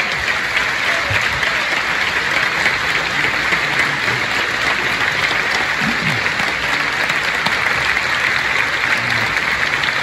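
A large concert audience applauding steadily at the end of a choral and organ piece.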